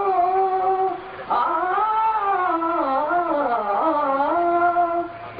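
A man singing a Kannada devotional prayer song to Ganesha alone, in long drawn-out notes. He holds one note, breaks off about a second in, then sings a winding phrase that settles on another long held note.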